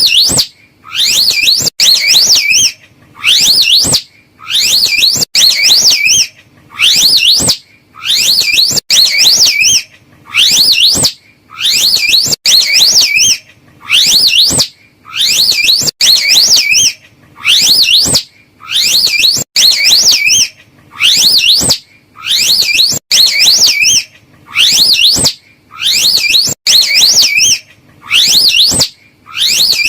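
Slow loris calls played as a repeating loop: loud, short bursts of rapidly warbling high whistles, about one a second, each followed by a brief gap.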